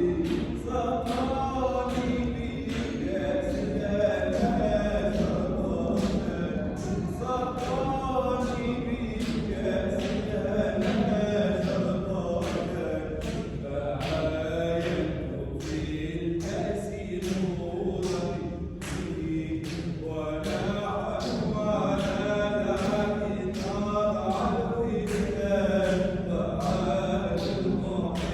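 Unaccompanied group chanting of a Sufi dhikr (hadra): a melodic line of many voices that rises and falls, over a steady beat of sharp accents about twice a second.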